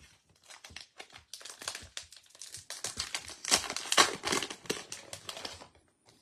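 Foil wrapper of a Topps baseball card pack crinkling and tearing as it is ripped open by hand. The crackle is loudest about midway through and stops shortly before the end.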